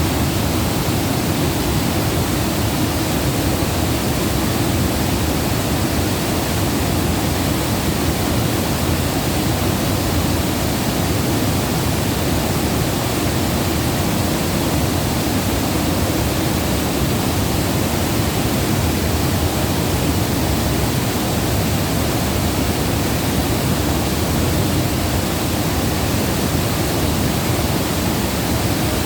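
Flowing water rushing steadily and without a break, a deep, even roar with no drips or splashes standing out.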